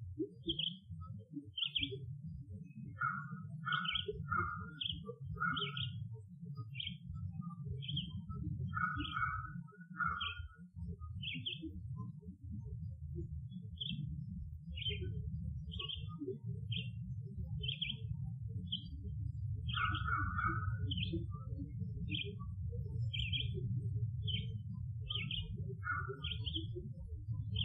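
Birds chirping in a forest, a short high chirp repeated about one and a half times a second with a brief pause midway, joined at times by lower double notes, over a steady low rumble.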